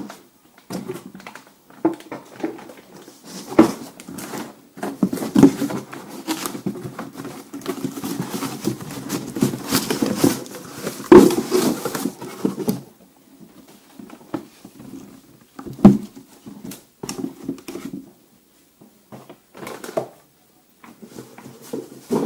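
Unboxing a cordless circular saw kit: packaging rustling and being handled, with irregular knocks and clicks, busier for about the first half, then sparser scattered clicks.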